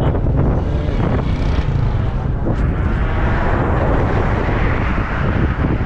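Motorcycle riding at road speed: a steady low engine rumble under wind rushing over the microphone. Around the middle, a passing vehicle's rush builds up close and then fades.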